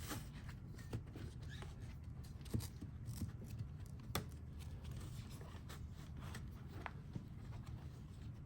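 Faint handling noises as a foam pad is fed under a sofa's steel spring bands: soft rubbing and scraping with scattered light clicks and taps, the sharpest about two and a half and four seconds in, over a steady low hum.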